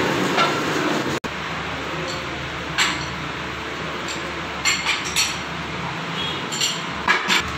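A large lathe runs with a flywheel spinning in its chuck, then breaks off abruptly about a second in. After that, a steel chuck key clinks sharply against the lathe chuck about six times as it is fitted and turned to free the flywheel, over a steady low hum.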